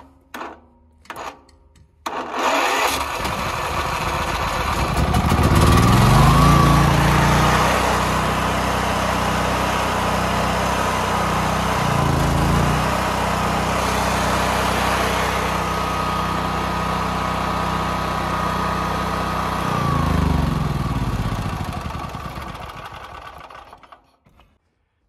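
Small generator engine catching after a few short cranking attempts and then running. Its speed rises about five seconds in, dips briefly halfway through, then falls away as it winds down and stops near the end.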